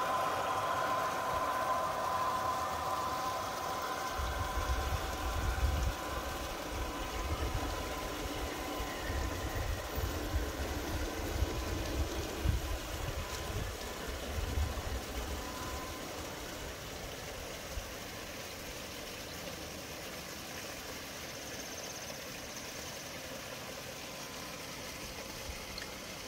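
Large-scale garden model train, a Rock Island E8 and Mikado pulling track-cleaning cars, running with a steady whine that fades away over the first several seconds. Wind gusts buffet the microphone for several seconds in the middle.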